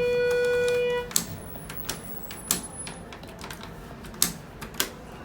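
A steady electronic beep lasting about a second in a Schindler 330A elevator cab, followed by a few sharp, irregular clicks.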